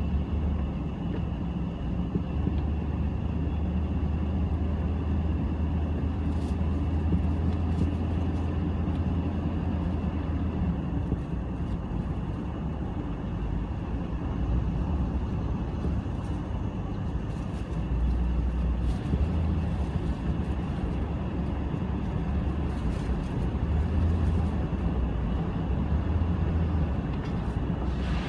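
Steady low rumble of a motor vehicle.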